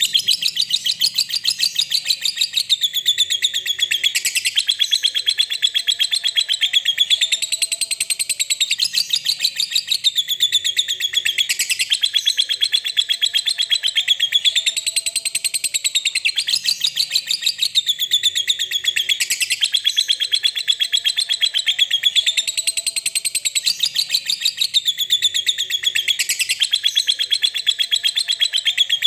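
Lovebird's ngekek: one long, unbroken, rapid chattering trill of high chirps that swells and dips in waves about every two seconds. This is the song used as a lure to set other lovebirds ngekek-ing.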